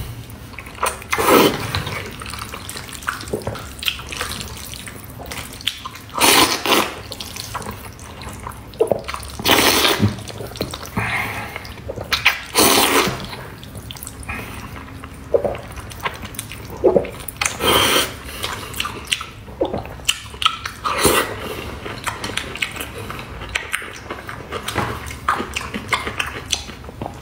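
Noodles being slurped: a series of loud wet slurps of Korean-style black bean sauce noodles (jajangmyeon), several seconds apart, with softer wet mouth sounds between them.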